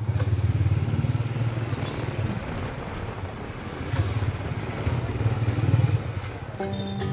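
Motorbike engine running, with a strong low rumble that swells and eases; music comes back in near the end.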